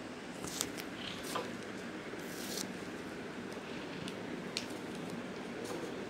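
Hands handling a glued leaf on a sheet of paper: light rustles and a few sharp clicks, with one short brushing sweep about two seconds in, as the leaf is set in place and pressed down. A steady low hiss runs underneath.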